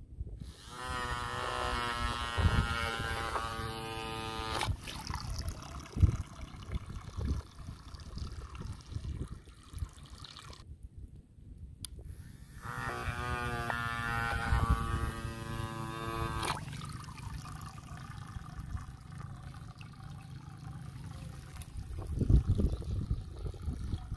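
Small DC toy-boat motor whirring as it spins a plastic propeller in the air, in two runs of about four seconds each with a steady high whine. Low rumbling noise fills the gaps between.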